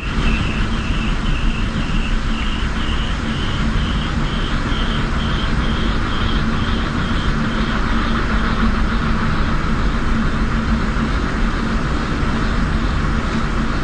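Runaway wind turbine spinning far too fast in a storm, a steady roar of strong wind and rotor noise with a low hum. A high whine pulses about three times a second through the first half, then fades into the roar.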